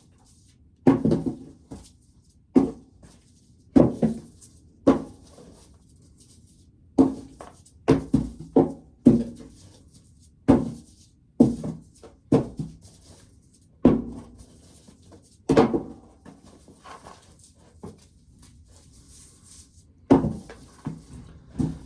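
Shelled corncobs being picked out and dropped one by one into a 5-gallon pail, a hollow thunk every second or so at an uneven pace.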